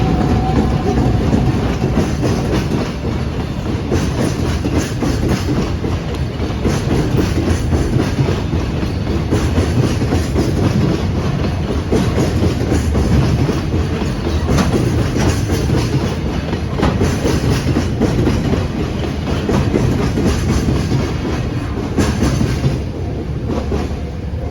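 Freight train hauled by an EF210 electric locomotive rolling past at close range, a long train of wagons with wheels clacking rhythmically over the rail joints. It eases off a little near the end.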